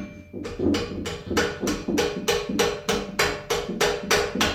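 Hammer blows on a stuck BMX handlebar stem in a quick, even rhythm, about four strikes a second, each with a short metallic ring. The stem is seized on, probably because it got painted on.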